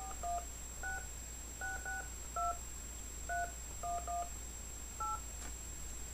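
Touch-tone telephone keypad dialing a number: ten short two-tone beeps at an uneven pace.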